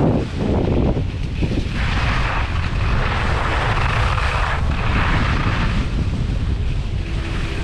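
Wind buffeting an action camera's microphone during a ski descent: a constant low rumble. Above it, skis hiss over packed snow, swelling twice.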